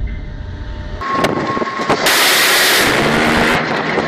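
Low rumble trailing off after shots from a warship's 76 mm bow gun, then wind and sea noise on the open deck with a loud, steady rushing roar lasting about a second and a half in the middle.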